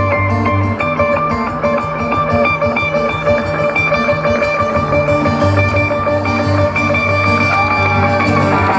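Live band playing an instrumental passage: guitar over bass and drums, with no singing.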